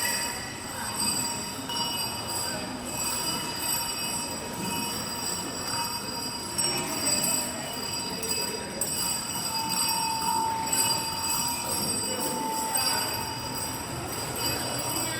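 Cowbells ringing together in a continuous jangle, with several high metallic tones held steadily over a rustling clatter. A lower ringing tone swells briefly about ten seconds in.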